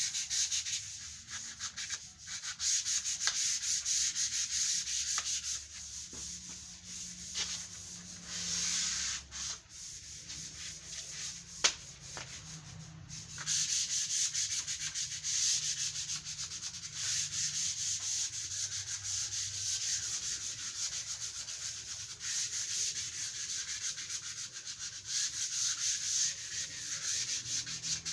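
240-grit sandpaper rubbed by hand over wood sealed with a first coat of sanding sealer: a steady, fast scratching. It eases off for several seconds in the middle, where there is one sharp click.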